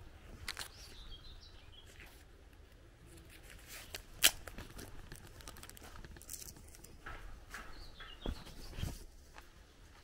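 Footsteps of someone walking through a garden, with small birds chirping now and then and a single sharp click about four seconds in, the loudest sound.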